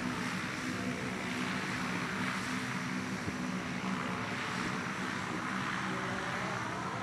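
Steady drone of several C-130 Hercules turboprop engines and propellers as the aircraft taxi in a line, with a slight rise in pitch near the end.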